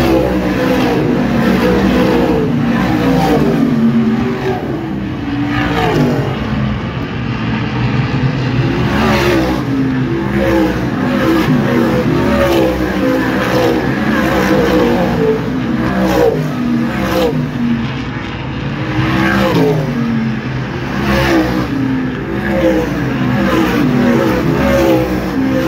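Several race car engines running laps at speed. Their pitch sweeps up and down again and again as cars pass by one after another.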